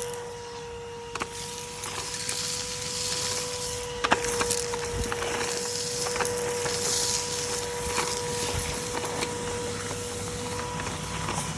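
Numatic Bertie cylinder vacuum cleaner running with a steady motor whine while picking up debris, which makes scattered clicks and knocks, one sharper knock about four seconds in.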